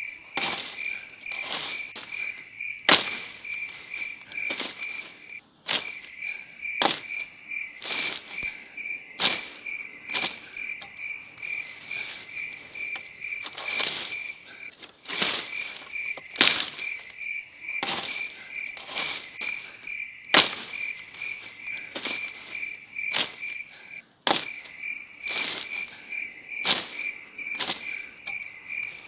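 Insects trilling steadily in a high, pulsing tone, with sharp knocks about once a second throughout.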